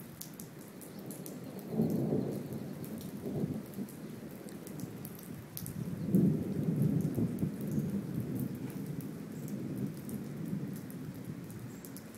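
Thunder rumbling during a storm: a short rumble about two seconds in, then a longer rolling peal from about six seconds that slowly fades. Rain pattering runs underneath throughout.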